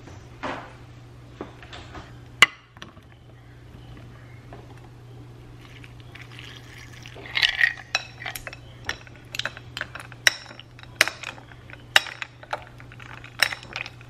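A few clinks into a ceramic bowl, then coconut water poured from a cup over ice cubes and berries, followed by a run of sharp clinks as the ice and a metal spoon knock against the bowl while stirring.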